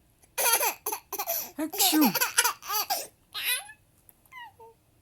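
A young girl laughing hard in a quick string of high-pitched bursts for about three seconds, then two short, softer sounds.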